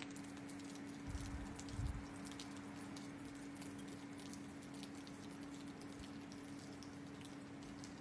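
Quiet snowstorm ambience: faint, irregular pattering ticks of falling snow over a steady low hum, with two soft low thumps between one and two seconds in.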